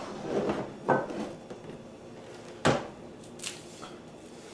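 Knocks and clatters of kitchen things being handled, with a sharp knock about a second in and a louder one a little later, as a plastic cutting board is fetched.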